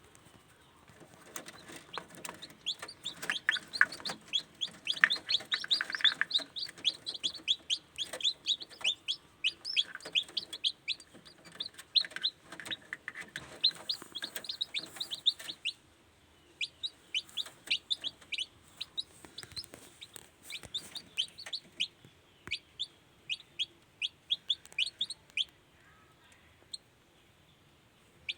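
Newly hatched kampung chicks peeping: many short, high, falling chirps in quick succession, several overlapping, growing sparser from about halfway.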